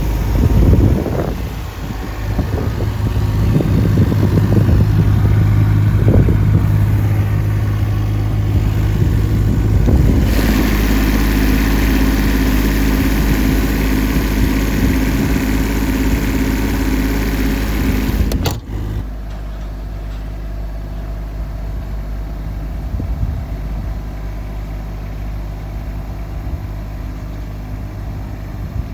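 Engine of a Nagano Kogyo NUL060-2 aerial work platform truck running while the machine is put through its operation check. It is louder and busier for the first half, with an added rushing noise. About two-thirds of the way in the noise drops suddenly and the engine settles into a quieter, steady run.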